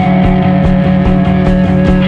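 Background rock music with guitar over a steady beat.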